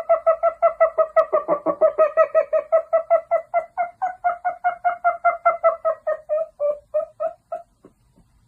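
Cackling laughter: a long, fast, evenly paced run of 'ha' syllables at one steady pitch, slowing and stopping a little before the end.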